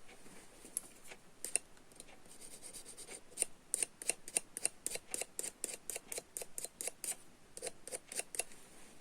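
Rapid short scraping strokes on the plastic of a USB plug housing during hand repair, about three to four a second, starting about three seconds in after a few scattered clicks.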